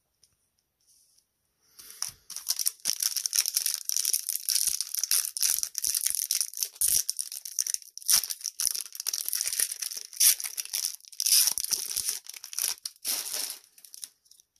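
Yu Yu Hakusho TCG booster pack wrapper being torn open and crinkled: a dense, irregular crackling that starts about two seconds in and lasts about eleven seconds.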